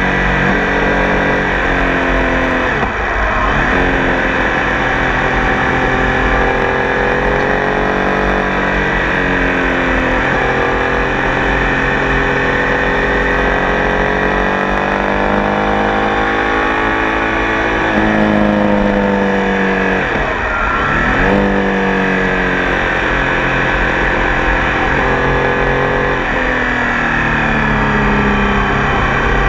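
Triumph Tiger Sport 800 three-cylinder motorcycle engine running under way, its pitch drifting up and down with the throttle and jumping several times as gears change.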